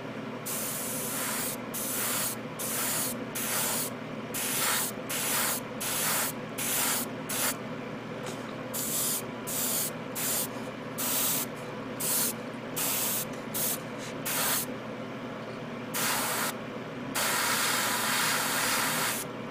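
Airbrush set to very low pressure, hissing in short spray bursts of about half a second, roughly two a second, then a longer continuous spray over the last couple of seconds. A steady faint hum runs underneath.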